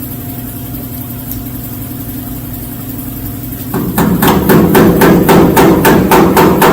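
Hammer blows on sheet steel in a quick, even rhythm, about four a second, starting about four seconds in, as a patch panel is shaped.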